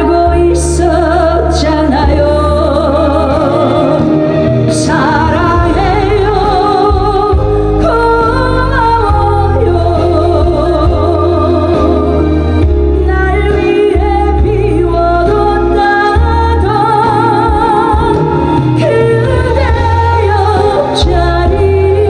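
Woman singing a Korean trot song into a handheld microphone with wide vibrato, over a loud backing track with deep bass.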